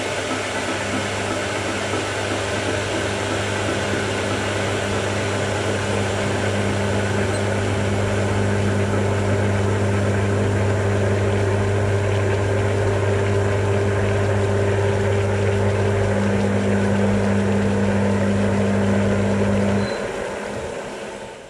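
Induction hob running at its boost (P) setting: a steady electrical hum from the coil with cooling-fan noise, while a pot of water comes to a rolling boil. Near the end the hum cuts off suddenly as the hob is switched off, and the remaining noise fades away over about a second.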